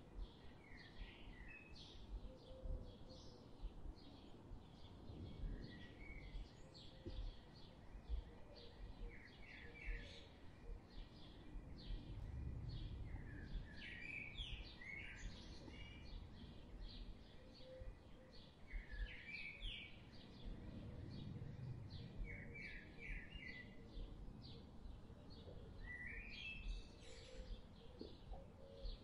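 Small birds chirping and twittering outdoors: many short, high chirps and quick rising trills all through, faint, over a soft low rumble of background noise that swells now and then.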